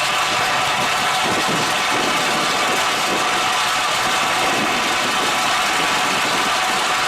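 Echidna OmniCut triple-blade excavator-mounted stone saw running with the excavator's engine: a steady, unbroken mechanical drone with a constant high whine over it.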